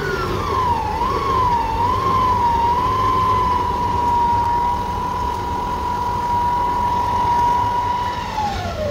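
Stand mixer motor whining as its flat beater works through cream cheese and sugar. The pitch dips and wavers for a couple of seconds, holds steady, then falls away near the end as the motor winds down.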